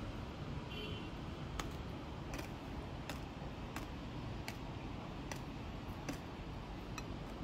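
Faint, sharp light clicks, about eight of them at an even pace of a little more than one a second, over a steady background hiss.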